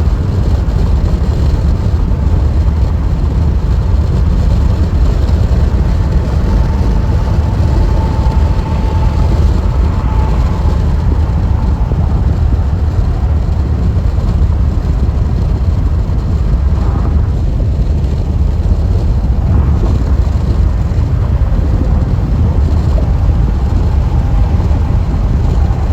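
A car's tyres and road noise heard from inside the cabin at freeway speed: a loud, steady low rumble, with a faint whine that swells and fades from time to time.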